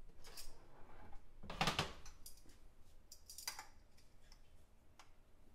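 Metal kitchen tongs clicking and a few short clatters as raw steaks are picked up from a dish, the loudest about one and a half seconds in and another about three and a half seconds in.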